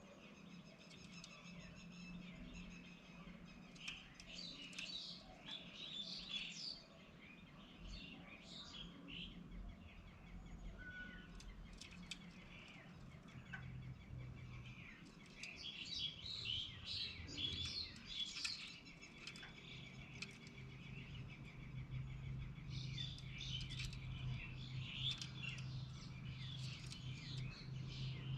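Wild birds chirping in repeated clusters of short calls, over a low steady hum that grows louder in the second half.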